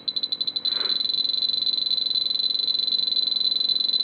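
Spektrum DX7 radio transmitter beeping as its adjust key is held down to scroll the aileron swash-mix value from +60 to −60. The high-pitched key beeps come faster and faster and, under a second in, merge into one continuous tone as the value steps rapidly.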